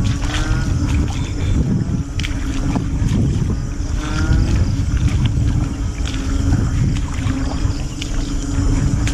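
Frogs calling in short rising chirp series, roughly one every four seconds, over a loud low rumbling noise and a steady low hum.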